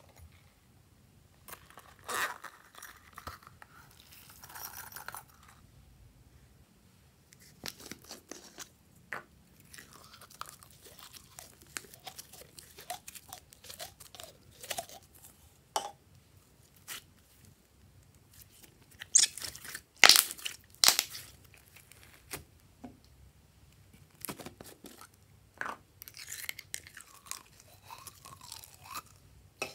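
Slime being squeezed out of clear plastic bottles and worked by hand in a bowl: irregular short clicks and squelches, with the loudest cluster about twenty seconds in.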